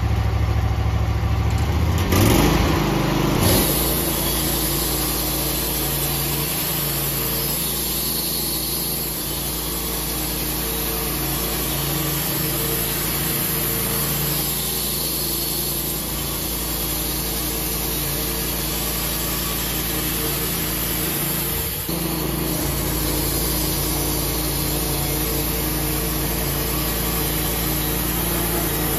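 Wood-Mizer LT15 portable band sawmill running, its band blade sawing through a cedar log. Pitch and loudness rise briefly about two seconds in, and then the mill runs steadily.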